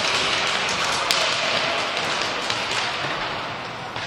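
Inline hockey play in an echoing gym: skate wheels rolling on the wooden floor and hockey sticks tapping and clacking against the ball and floor during a scramble in front of the goal, over a steady din of the hall.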